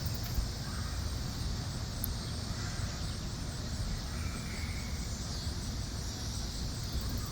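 Outdoor ambience: a steady low rumble under a constant high-pitched chirring of insects such as crickets.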